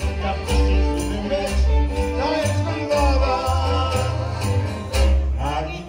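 Live folk-band music in an instrumental passage between sung verses: violin and accordion playing the tune over strummed acoustic guitar and a plucked double bass, in a steady, lively beat.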